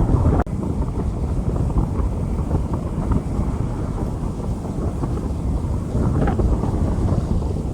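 Wind buffeting the microphone in a dense, uneven low rumble during rain on a street. The rumble dips sharply for a moment about half a second in.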